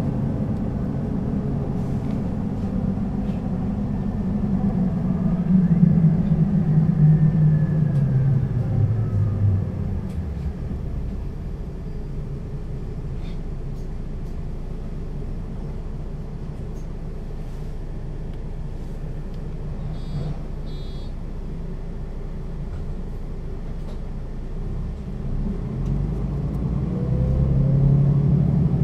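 Mercedes-Benz O 530 G Citaro articulated bus with Voith automatic gearbox, heard from on board: the engine note falls as the bus slows, then runs at a steady idle. Two short high beeps come about 20 seconds in, and near the end the engine note rises again as the bus pulls away.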